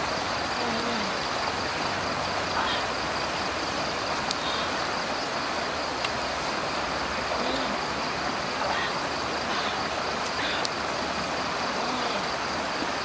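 Steady night-time outdoor ambience: an even hiss with insects trilling. A few faint clicks and three short, low murmurs from a person eating rise briefly above it.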